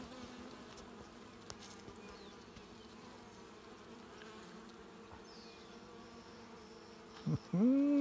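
Steady, soft hum of many honeybees crawling and flying around a comb lifted from an open top bar hive. Near the end, a person makes a short voiced sound.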